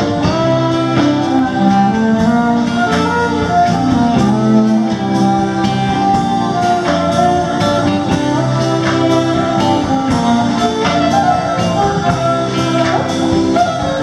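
Live band music: a violin played with the bow over electric bass and a steady beat.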